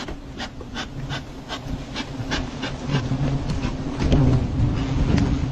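Bee smoker's bellows puffing in a quick regular series, about two puffs a second, over the steady buzzing of a colony of giant honeybees. The buzzing grows louder about four seconds in as the smoked bees take to the air.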